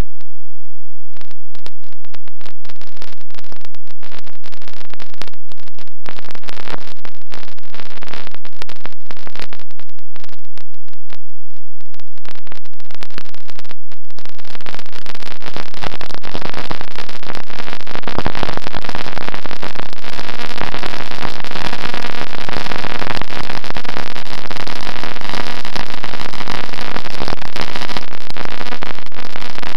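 Loud, distorted rushing noise on a model plane's onboard camera audio, cutting in and out for about the first fourteen seconds and then continuous, with a faint steady hum joining in the second half.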